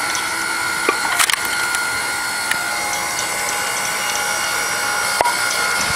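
Electric hydraulic log splitter (KM Grand 9-ton) running, its motor and pump giving a steady whine. A couple of sharp knocks come about a second in, and the pitch shifts briefly near the end.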